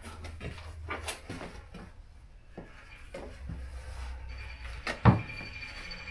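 Clicks and knocks of metal motorcycle parts being handled, with one loud knock about five seconds in. A faint steady high tone joins from about four seconds in.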